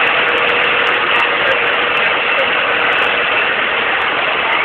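Diesel school bus engine running steadily.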